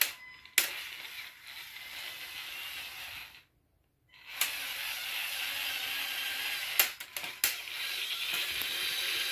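Two Lego Technic XL motors driving a model truck through its plastic four-speed gearbox, a steady gear whir. The whir stops for about a second a little over three seconds in, then starts again louder, with a few sharp clicks near the end.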